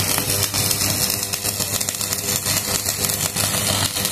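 Stick (manual metal arc) welding: the electrode's arc crackling and sizzling steadily as a bead is run along a steel shaft, over a steady low hum.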